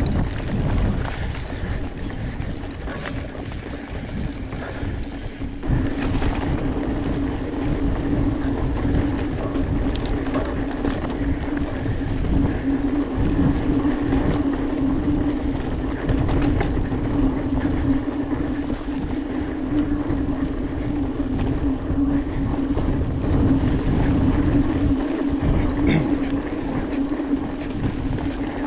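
Mountain bike riding fast over a dirt singletrack: wind rush and rumble on the handlebar camera's microphone, with scattered knocks from bumps. A steady mid-pitched hum from the bike joins about six seconds in and keeps on.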